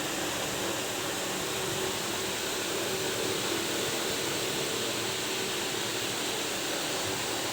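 Gas stove burner running with a steady hiss under a pot of sugar syrup.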